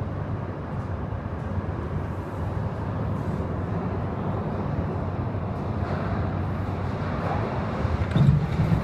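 MTR Kwun Tong Line C-Train running into an underground station: a low rumble of wheels on rail coming out of the tunnel. It grows louder as the train enters the platform, and is loudest near the end as the cars pass close by.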